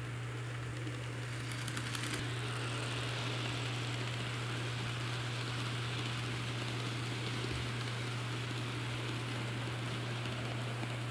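N scale model freight train rolling over plastic-roadbed sectional track, its many small wheels making a steady rattling clatter. There is a brief run of clicks about two seconds in, and a constant low hum sits underneath.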